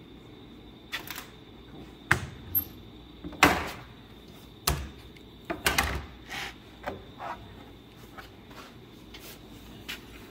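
Irregular knocks, taps and clatters of wooden workpieces and tools being handled and set down on a workbench, about a dozen sharp hits spaced unevenly, over a steady low hum.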